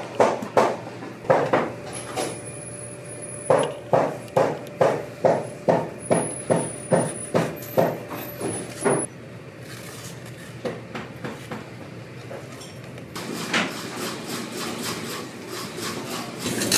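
Loud, sharp knocks at a steady pace of about two a second, with a short break, stopping about nine seconds in; a faint high squeal sounds twice among them. After the knocks stop come softer scattered clicks, then a steady hiss.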